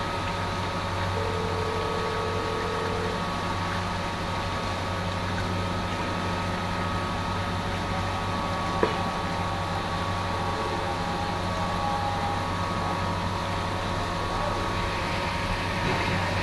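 A steady mechanical hum with several held tones, under tap water running and splashing into a plastic basin as fish pieces are rinsed by hand. A single knock sounds about nine seconds in.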